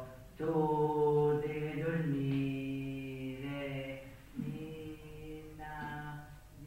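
A lone male voice chanting slowly and unaccompanied in long held notes with short breaks between them, growing fainter toward the end.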